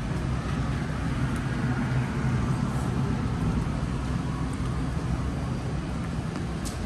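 City street traffic: a motor vehicle running close by with a low engine hum, loudest through the middle and easing off near the end, over a steady bed of road noise.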